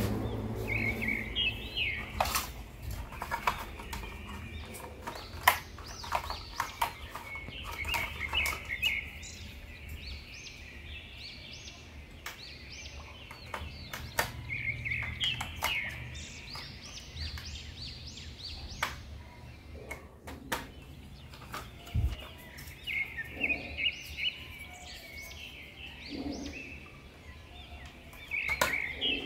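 Hard plastic parts of a toy robot figure clicking, tapping and knocking as it is handled and its parts are fitted, in a scatter of short clicks. Birds chirp in the background in several bursts of calls.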